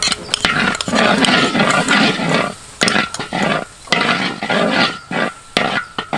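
Metal spatula scraping and stirring a red paste frying in oil around a large wok, in repeated rasping strokes with occasional clicks of metal on metal.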